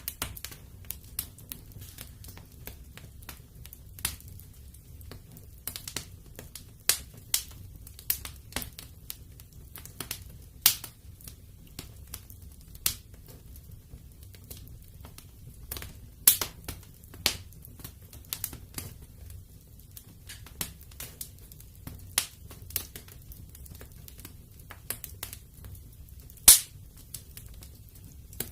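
Wood fire crackling in a fireplace: irregular sharp pops and snaps over a faint, steady low rumble, with one loud pop near the end.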